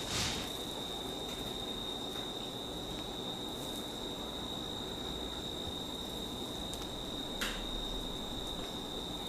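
Massage hand movements: two brief rustling swishes, one near the start and one about seven seconds in, over a steady high-pitched whine and background hiss.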